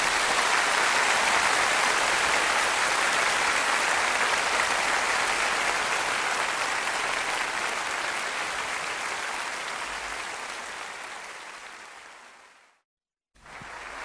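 Audience applause, a steady even clapping that fades out gradually over the last few seconds and drops to a moment of silence near the end.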